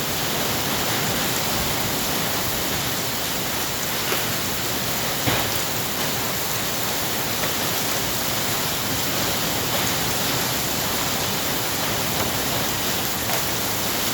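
Hail and heavy rain falling steadily in a dense wash of noise, with a few sharper single hailstone strikes about four and five seconds in.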